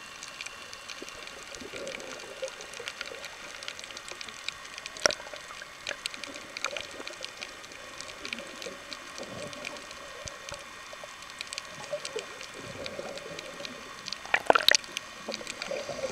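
Underwater sound picked up by a submerged camera: a steady crackle of small clicks over faint water noise. About three quarters of the way through comes a louder rush of clicks and bubbles as a swimmer's arm and bubbles pass close to the camera.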